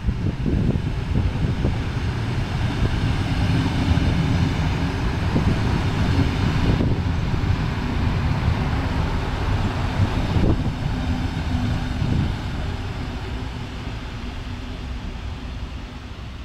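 Electric regional train running past along the track: a loud low rumble of wheels on rail with a steady motor hum, which fades as the train draws away near the end.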